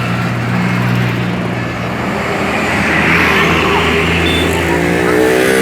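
Large bus passing close by: a steady low engine hum that steps down in pitch about two seconds in, with road noise swelling past the middle.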